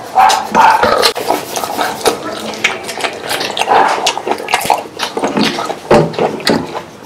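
Close-up eating sounds: a man chewing fried chicken and rice, licking his fingers and pulling a piece of crispy fried chicken apart by hand, with many short mouth clicks.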